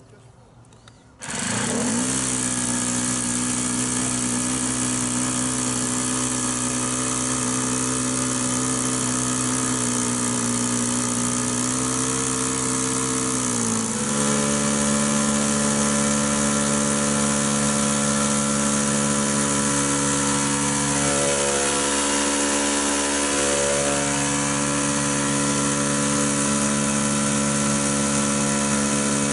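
Model aircraft engine running steadily at a constant throttle. It starts abruptly about a second in, and its pitch steps up slightly about halfway through.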